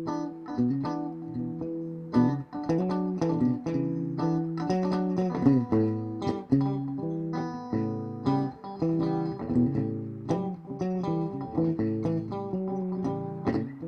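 Background music: plucked guitar playing with a bass line.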